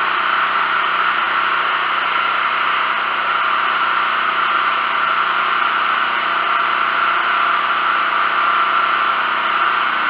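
Sportsman 4000-watt propane generator's four-stroke engine running steadily, on its first run.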